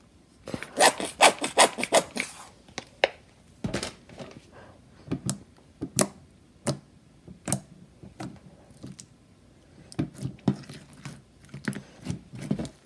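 Stiff slime being kneaded and pulled by hand, giving irregular sticky clicks, crackles and small tearing pops; the slime is still too tough and not stretchy enough.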